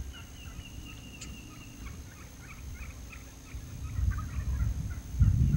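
Wild turkeys gobbling, with a low rumbling noise building near the end.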